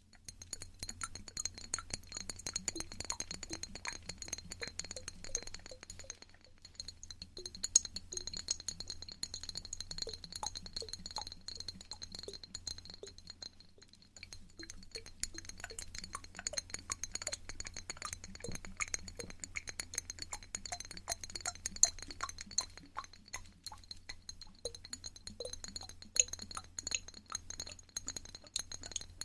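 Quiet ASMR trigger sounds close to the microphone: a dense, irregular stream of small clicks and light clinks, thinning briefly twice, over a faint steady high-pitched tone.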